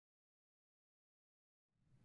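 Silence, with faint room tone fading in just before the end.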